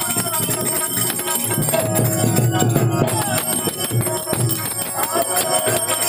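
A man singing a devotional santvani song to harmonium accompaniment, with a steady high metallic ringing over the music.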